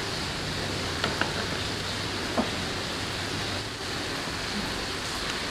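Steady background hiss, with a few light crackles about a second and two seconds in as a folded paper cup is pulled out and opened.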